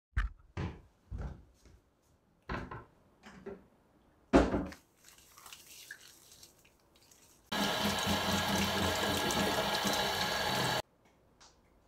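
A few short knocks and clatters, then a kitchen tap turned on and running into a sink for about three seconds before it is shut off suddenly.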